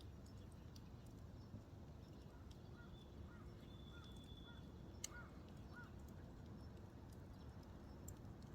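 Low-burning campfire embers crackling faintly, with scattered small pops and one sharper pop about five seconds in. A few faint short chirps sound in the middle.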